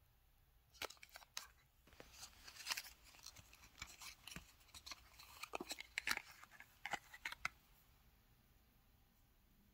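A small cardboard lipstick box being handled and opened and the lipstick pulled out of its clear plastic wrapper: a run of light clicks, scrapes and crinkles.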